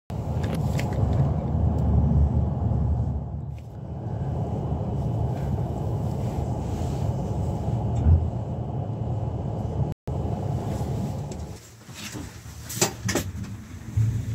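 Steady low rumble of a Class 390 Pendolino electric train running on the track, heard from inside the carriage as it comes into the station. After a cut near the middle, the cabin sound is quieter, with a few sharp clicks and knocks.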